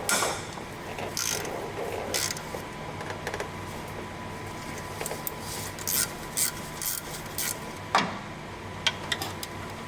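Hand tools clicking and scraping on metal as the bolts holding the power steering pump are worked loose: a dozen or so short, irregular clicks and scrapes, the loudest about 8 seconds in, over a faint steady hum.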